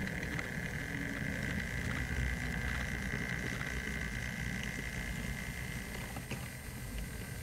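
Model railway train running along the track: a steady low rumble of wheels on rail with a steady high motor whine over it.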